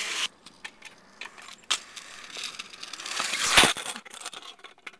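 Small folding aluminium kick scooter rolling over rough asphalt, its hard wheels giving a gritty rolling noise with rattles and clicks. The noise swells to a loud clatter about three and a half seconds in as the scooter passes close, then fades.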